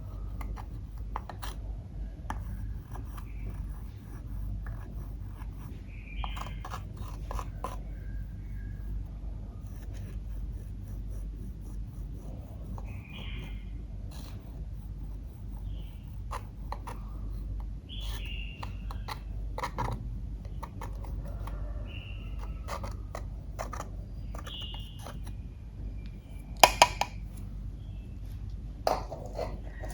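Close-up handling sounds of makeup being worked into clear slime: light scraping and scattered small clicks, with two sharp, louder clicks near the end.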